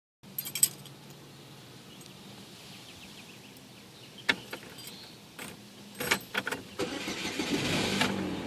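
Keys jangling and clicking at the ignition of a 2004 Chevy Malibu Classic, then near the end a second or two of starter cranking that stops without the engine catching: the car's no-start fault.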